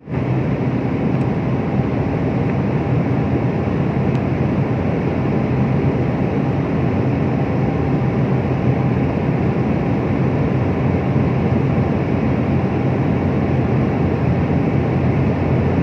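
Steady, even noise of an airliner's jet engines and rushing air, heard from inside the passenger cabin in flight.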